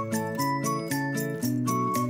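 Background music: melodic notes over a steady beat, with short bright percussion hits about four times a second.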